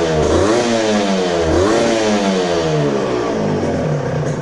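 Yamaha TZM 150's two-stroke single blipped twice, the revs rising and falling each time, then dropping back to a steady idle near the end.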